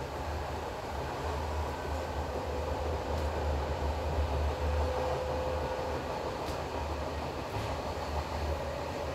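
Passenger train carriages running along the track at speed, heard from an open window: a steady low rumble of wheels on rail with a faint whine and a few light clicks.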